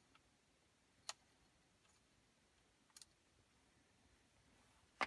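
Three sharp little clicks about two seconds apart, the last the loudest, from a Torx T8 screwdriver working the screws out of the metal side bracket of a car touchscreen unit; otherwise near silence.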